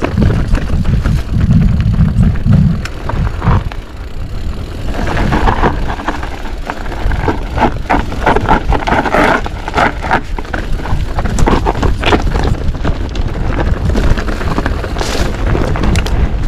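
A Commencal Meta TR 29 mountain bike riding down a rocky enduro trail, heard through a GoPro's microphone: a steady low rumble of wind and rolling tyres, with many sharp clicks, knocks and rattles from the chain and frame as the bike hits rocks, thickest in the middle stretch.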